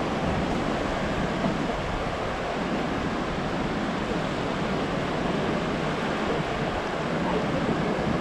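Steady wash of ocean surf breaking and running up a sandy beach, with some wind.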